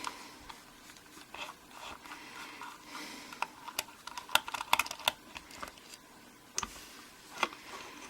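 Scattered small metallic clicks and ticks of a screwdriver working a Phillips screw out of a Mul-T-Lock Garrison G10 padlock, with light handling taps of the lock body and tool, busiest around the middle.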